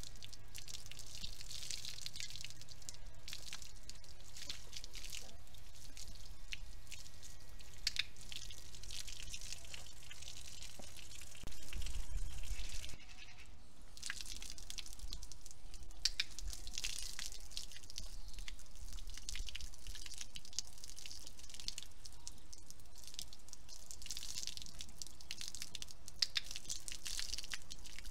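Water from a garden hose spraying onto a horse's legs and splashing on wet paving stones: a steady hiss with scattered drips and splashes. A brief low rumble near the middle.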